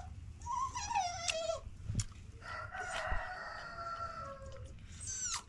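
Rooster crowing: a shorter call falling in pitch about half a second in, then one long crow of about two seconds in the middle.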